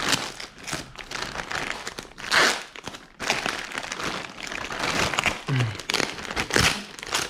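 Packaging being crinkled and pulled open while a riding jacket is unwrapped, in irregular rustling bursts.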